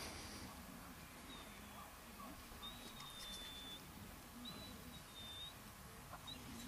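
Faint bird calls: several thin, high whistled notes, each short and slightly falling, one held for about a second, over a low outdoor rumble.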